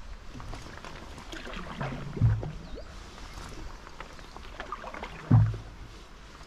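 Canoe paddle strokes on calm river water, about one every three seconds. Each stroke is a short, low surge, and the loudest two come about two and five seconds in. Faint bird chirps sound in the background.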